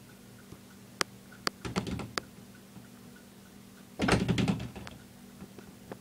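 Dayton 4C854 56-inch heavy-duty commercial ceiling fan running with a faint, steady low hum. Over it come a few sharp clicks and, about four seconds in, a short rattling clatter of knocks, the loudest sound.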